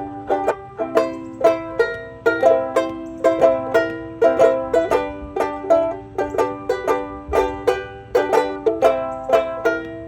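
Banjo-uke strummed in a steady rhythm, chords changing every second or so, with no singing.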